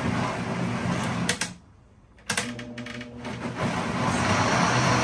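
Countertop blender motor running as it purées green chile sauce. It stops about a second and a half in and starts again with a click under a second later.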